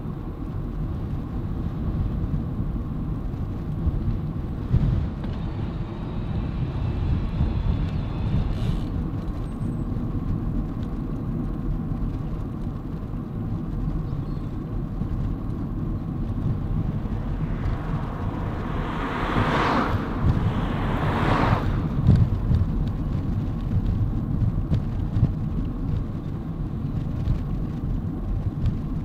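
Low rumble of wind on a fur-covered microphone and bicycle tyres rolling on tarmac while riding. About two-thirds of the way through come two brief, louder rushing sounds about two seconds apart.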